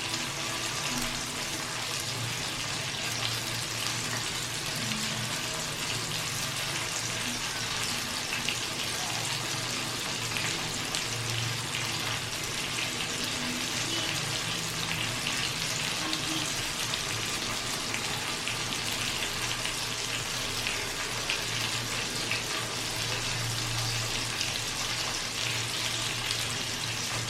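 Chicken roasting: a steady, dense sizzle of hot fat with many small crackles and pops, over a low hum.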